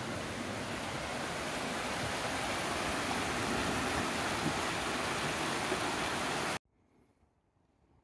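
Shallow rocky stream rushing over stones: a steady wash of water that swells a little, then cuts off suddenly about six and a half seconds in.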